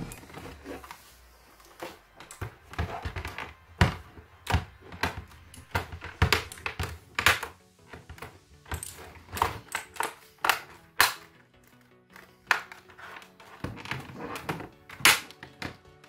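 Plastic top housing of a Razer BlackWidow keyboard being pressed onto its base, with irregular sharp clicks and snaps as the side clips catch one after another around the edge.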